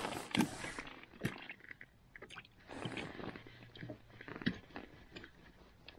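Handling noise from ice-fishing gear and clothing: a rustle at the start, then scattered sharp clicks and light knocks, with another short rustle about three seconds in, as a small jigging rod and lure are worked over the ice hole.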